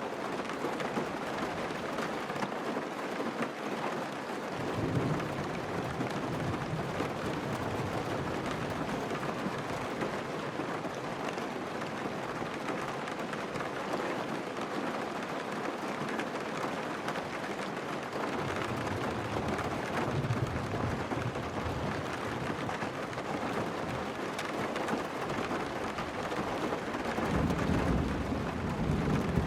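Steady heavy rain with low rolls of thunder: one about five seconds in, another around twenty seconds, and a longer one near the end.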